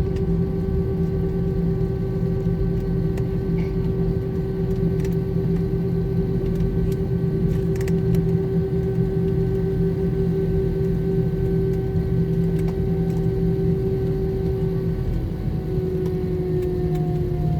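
Cabin noise inside an Airbus A321-211 taxiing after landing: a steady low rumble with the constant whine of its CFM56 engines at idle, the whine dropping slightly in pitch near the end.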